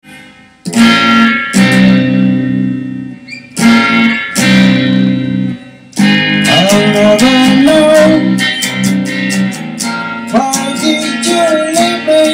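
Electric guitar song intro with backing: two short bursts of chords, a pause, two more, then a steady passage from about six seconds in, with a lead line sliding and bending between notes.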